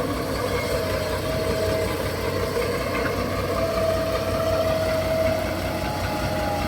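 Heavy diesel engine running steadily at low speed, with an even low rumble and a faint whine held near one pitch.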